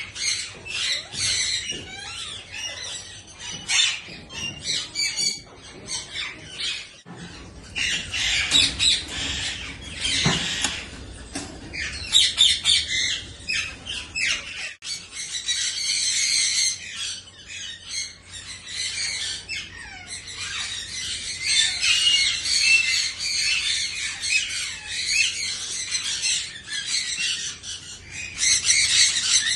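A flock of budgerigars (small Australian parrots) chattering and squawking continuously, a dense mix of many overlapping high chirps and calls.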